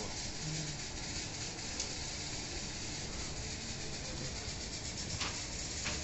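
Steady, fairly quiet hiss-like ambient noise from aboard a passenger train, with no distinct events.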